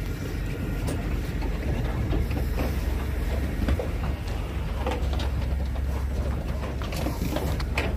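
Livestock truck's engine idling, a steady low rumble, with scattered knocks and clatter over it.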